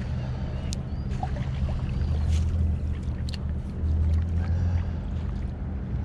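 Low rumble of wind buffeting the microphone, swelling and easing every second or two, with faint small-bird chirps and a few light ticks above it.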